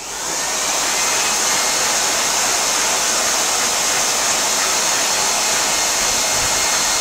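Handheld electric air blower switched on, spinning up over about a second to a steady, loud rush of air with a high whine.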